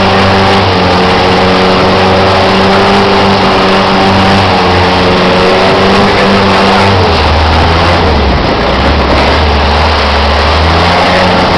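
A river tourist boat's engine running loud and steady, its note dropping lower and deeper about seven seconds in as the throttle eases.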